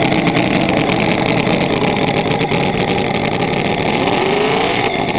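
Miniature scale V8 model engine running at high speed, a dense rapid buzzing, with its pitch rising about four seconds in as the throttle is opened.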